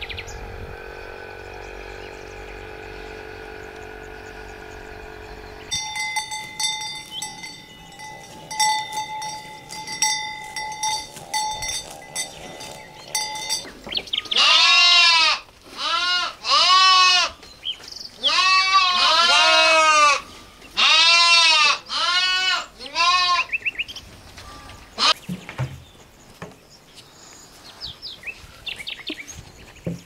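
Livestock bleating: a run of about nine loud calls in the middle, each rising and falling in pitch. Before the calls there are quieter steady tones, with rapid clicking added partway through. Faint high chirps follow near the end.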